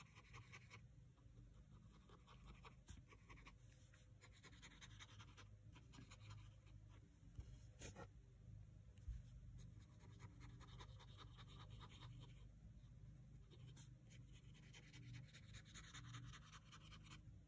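Faint, soft scratching strokes of a water brush pen worked over marker swatches on paper. The strokes come in short bouts of a second or two, with quiet gaps between.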